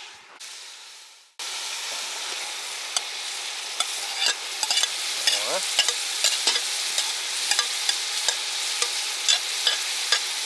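Meat frying in a kazan over a strong fire: a steady sizzle with frequent sharp pops and clicks. It starts about a second and a half in.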